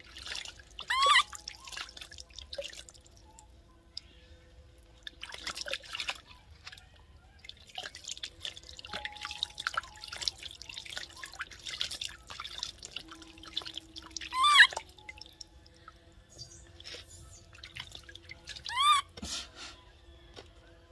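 Water splashing, pouring and dripping as a newborn macaque is bathed by hand over a plastic basin. Three times, about a second in, about two-thirds of the way through and near the end, the infant gives a short, high-pitched cry.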